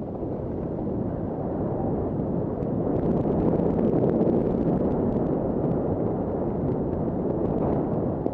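Wind rushing over the microphone of a skier's point-of-view camera while skiing downhill, mixed with the skis sliding over snow; the rush grows louder about three seconds in.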